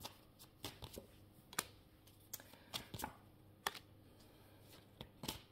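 Tarot cards being handled and laid down on a tabletop: a run of light, irregular clicks and taps.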